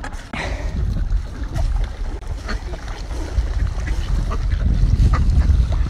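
Wind buffeting the microphone, strongest near the end, over a flock of mallards and white domestic ducks splashing in the water as they scramble for birdseed, with a few short quacks.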